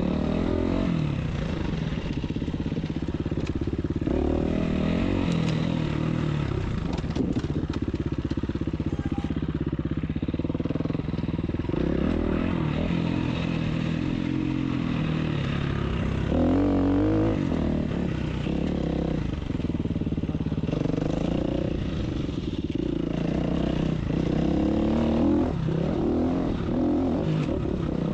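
Dirt bike engine running under way on a trail, its pitch rising and falling repeatedly as the throttle is worked.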